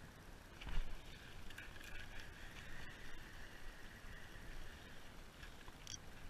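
Spinning reel being cranked to retrieve line, giving a steady whirr, over wind rumbling on the microphone. A sharp knock with a thump comes just under a second in.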